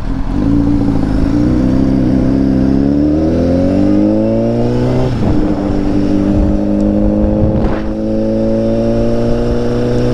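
Honda CBR1000RR's inline-four engine pulling under acceleration, its pitch rising steadily, then a short break about five seconds in as it shifts up, after which it runs at a steady pitch.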